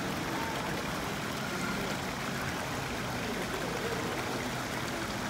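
Steady splashing of water running into a fish tank from an aerator pump, with a faint murmur of voices behind it.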